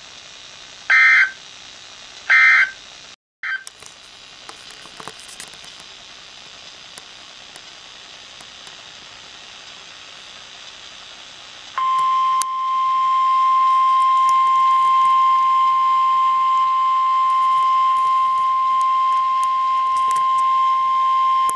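Weather radio alert signals: three short, shrill digital data bursts (SAME code), then faint hiss, then about halfway through a single steady warning alarm tone of about 1050 Hz held for roughly ten seconds, which announces a new warning message.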